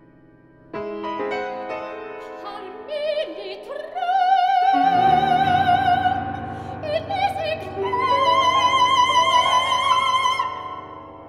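Classical soprano singing with wide vibrato over a grand piano, holding a long high note over a deep piano chord about five seconds in, then a second, higher held note that fades away near the end.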